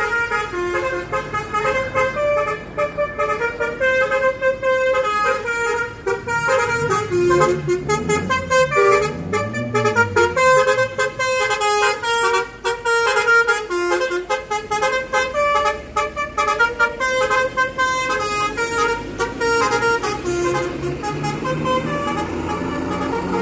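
Multi-tone musical "telolet" air horn on an Indonesian coach playing a melody, its notes changing in quick steps. About a third of the way through, the coach's diesel engine revs up and down twice beneath the horn.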